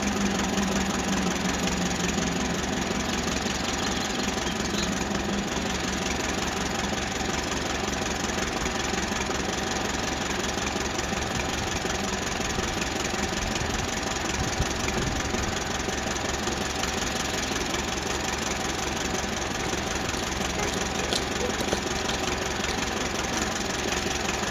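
Ferguson TED20 tractor's four-cylinder TVO engine idling steadily, with an even, rhythmic low firing beat.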